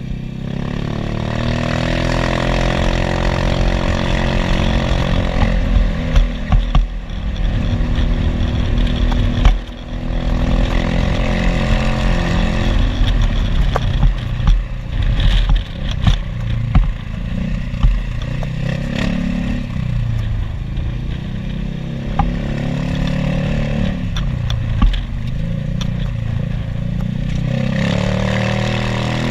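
Maxi-scooter engine running while riding, its pitch rising and falling as the throttle opens and closes, over a steady rush of wind noise with occasional short knocks.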